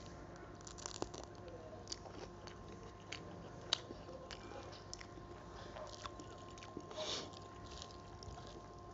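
Close-miked mouth sounds of a person eating rice and curry by hand: chewing with scattered short, crisp clicks of biting, including bites of a raw green chilli. A faint steady hum lies underneath.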